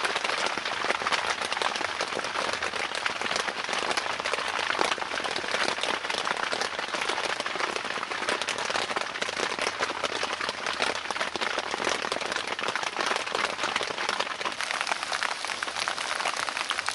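Steady rain falling on a tent's fabric, a dense, even hiss of countless drops, heard from inside the tent.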